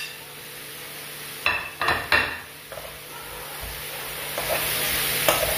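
A metal spoon stirring chickpeas, potatoes and tomatoes in a frying pan over a gas flame, clinking sharply a few times about a second and a half in and again near the end. The frying sizzle grows louder in the second half.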